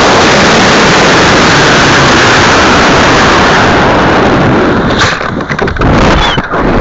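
High-power model rocket launch on a CTI G69 Skidmark motor: a loud, steady rushing roar of the motor burn and air, close enough to overload the microphone, breaking up about four and a half seconds in into gusty wind noise as the rocket climbs.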